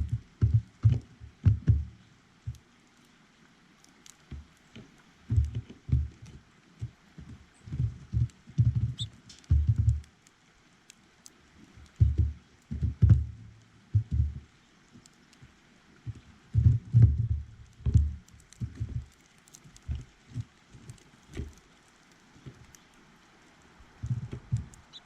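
Irregular clusters of low taps and thumps close to the microphone, from birds landing and pecking at seed on a feeder. A faint bird chirp comes about nine seconds in.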